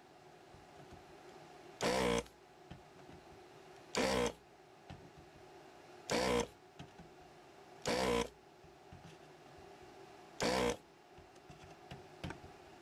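Electric vacuum desoldering gun's pump running in five short buzzing bursts, one about every two seconds, each sucking the molten solder off one pin of an integrated amplifier IC as the chip is unsoldered.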